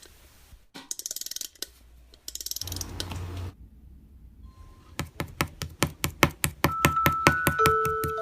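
Toy slime being squeezed and poked, making bursts of sharp clicking and crackling pops. In the second half come steady clicks about four a second, and near the end bell-like tones join in.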